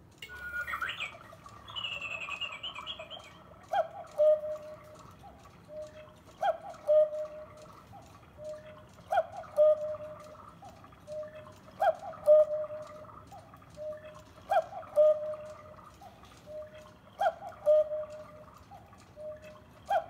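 Trenkle quartz cuckoo clock sounding the hour: an electronic two-note cuckoo call repeated about every two and a half seconds, starting with a brief chirp. A faint steady tick of the quartz movement runs behind it.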